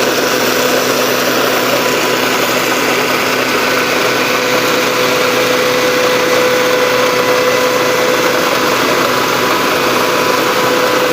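Homemade Vietnamese rice combine harvester running steadily: a dense, even machine din with a constant hum over it.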